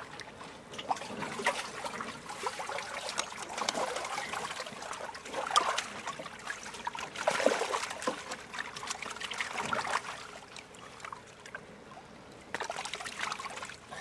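Water pouring and splashing through the mesh of a fishing keepnet as it is lifted and worked at the lake surface to release the fish. It comes in uneven bursts, with a quieter stretch near the end before a last short splash.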